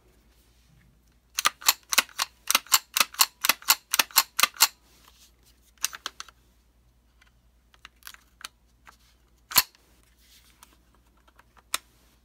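Sharp clicks and taps from handling a rifle: a quick run of about twenty clicks over some three seconds, then a few scattered clicks, one louder near the end.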